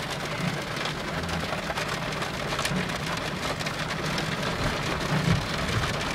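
Steady rain, an even hiss dotted with many small drop ticks, over the low hum of the Jeep Commander's engine running.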